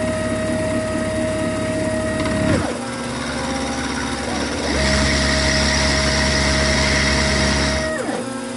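Milling machine cutting a bevel in a cast iron block with a 1/4-inch ball end mill. Its motors give a steady whine that glides to a new pitch every couple of seconds as the moves change. For about three seconds in the second half it grows louder, with a bright hiss.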